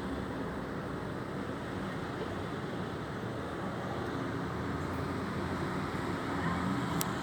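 Steady low rumble of city traffic, with one sharp click near the end.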